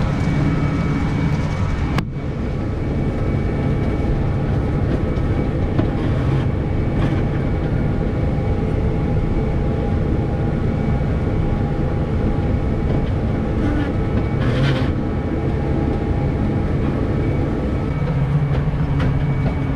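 Farm tractor running steadily while pulling a hay rake through the field, with the clatter of the machinery under the engine's even note; a sharp click about two seconds in.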